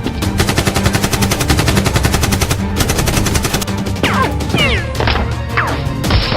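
Rapid automatic gunfire, a fast even run of shots lasting about three seconds, over background music. It gives way to several quick, falling whistling sounds in the second half.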